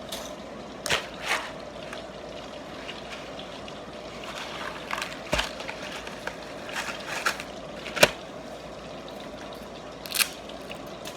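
Breaded chicken pieces frying in hot oil, a steady sizzle. Several sharp clicks and knocks of kitchen utensils and pans come over it, the loudest about eight seconds in.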